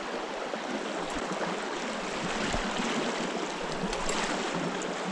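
Small river's water running steadily, an even rushing hiss.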